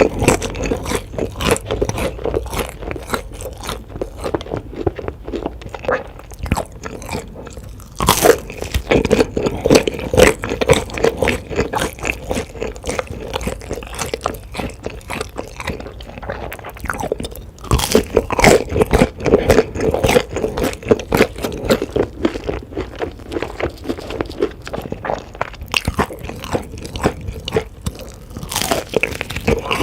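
Close-miked chewing of crunchy food, a dense crackle of crunches. A loud new crunchy bite comes about 8 s, 18 s and 28 s in, each followed by chewing.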